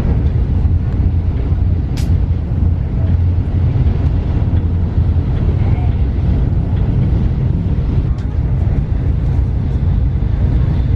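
Steady low rumble of a Shinkansen bullet train at speed, heard inside the passenger carriage, with a single sharp click about two seconds in.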